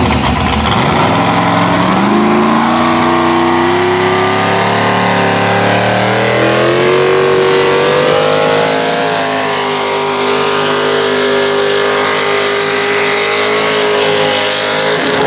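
Mini rod pulling tractor's engine running at full throttle while dragging the pulling sled. The revs climb over the first few seconds, then hold high with small rises and dips.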